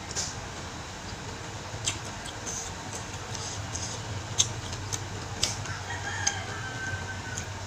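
Close-up eating sounds: a woman chewing goat meat with sharp wet mouth clicks every second or so, over a steady low hum. A faint drawn-out call sounds in the background near the end.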